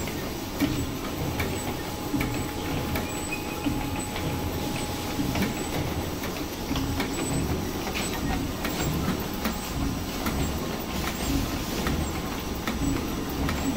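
Sugar cube moulding machine running: a steady mechanical clatter with many small clicks over a low rumble from its drive and rotary moulding drum.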